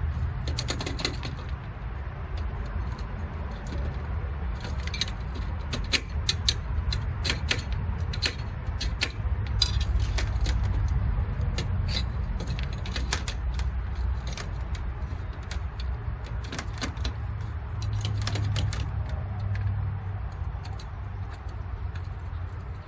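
Irregular clicks, taps and rattles of metal electrical conduit and wire being handled and fitted, over a steady low rumble.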